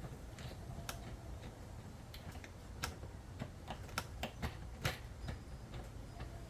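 Scattered light clicks and taps at irregular intervals as small car parts and plastic trim are handled, over a low steady rumble.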